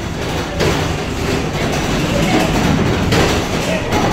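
Road noise inside the cargo box of a moving U-Haul truck: a loud, steady rumble with frequent rattles and knocks from the box.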